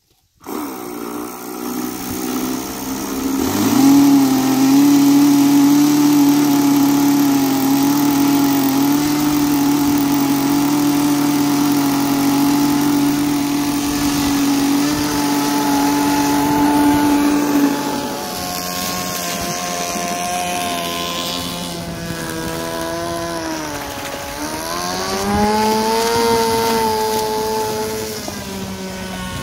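Nitro model-airplane engine driving an RC fan boat's propeller, running with a steady high buzz. It comes in abruptly about half a second in, climbs in pitch about three seconds in and holds there. From about halfway the pitch wanders, dips and climbs again near the end as the boat runs on the water.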